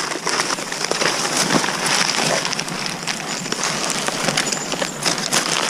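Rustling and crackling of a bundle of cut reed stalks being carried and handled over dry grass: a dense, even run of small crackles.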